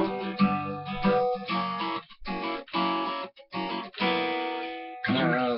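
Acoustic guitar strummed in an instrumental break between sung lines, the chords ringing with short breaks at the chord changes.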